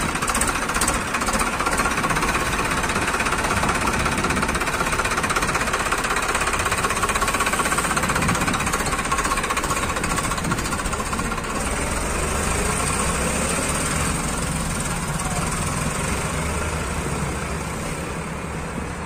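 Farmtrac 45 Powermaxx tractor's diesel engine running steadily at close range, dying away over the last few seconds as the tractors drive off.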